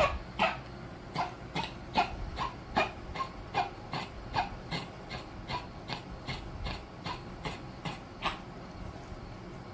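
A dog coughing over and over in a steady run of short hacks, about two to three a second, weakening partway through and stopping near the end. The coughing is put down to fluid in the lungs.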